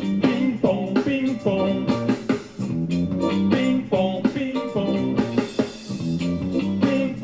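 A live band playing upbeat music, electric guitar and bass guitar to the fore, in a steady rhythm.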